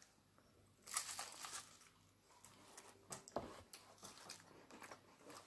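A crisp round cracker crunching as it is bitten into about a second in, followed by faint, scattered crunches of chewing.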